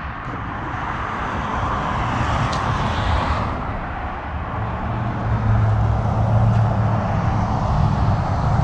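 A four-wheel-drive vehicle driving off-road: engine running with tyre and road noise, the engine's low hum growing stronger about halfway through.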